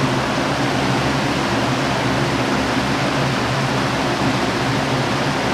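Lasko box fan with an air filter on the back, running steadily: an even rush of air over a low motor hum.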